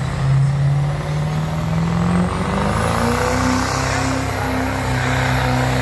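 Diesel pickup truck engine at full throttle pulling a weighted sled. The engine note climbs over the first two seconds, then holds steady at a higher pitch, with a high turbo whistle rising above it.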